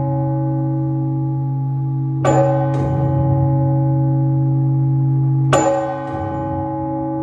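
Orthodox church bells rung to call the faithful to the Sunday service. A deep bell hums on steadily while a bell is struck twice, each strike followed by a second quick stroke, about two seconds in and again near five and a half seconds.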